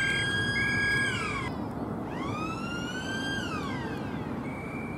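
A siren sounding in two long blasts. Each blast rises in pitch, holds steady for about a second, then falls away. The first blast ends about a second and a half in, and the second runs from about two seconds to four seconds in.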